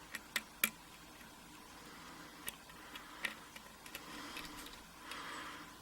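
A steel lock pick working the pin stack of a Schlage pin-tumbler lock held under a tension wrench: faint sharp clicks, three in quick succession at the start and a few scattered later, with light scraping between them.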